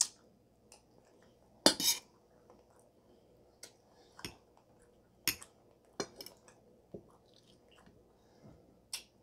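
Eating sounds: a metal fork clinking and scraping on a plate, with wet chewing and mouth sounds in between. About ten short, sharp clicks come unevenly over the few seconds, with a louder double one near the two-second mark.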